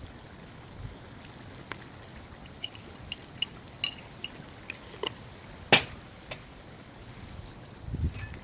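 A spoon and spice containers clinking and tapping while ground spice is added: scattered light clicks and small ringing clinks, one sharper click a little past halfway, and a soft thud near the end.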